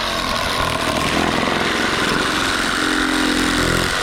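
A power tool running steadily at full speed, then cutting off suddenly at the very end.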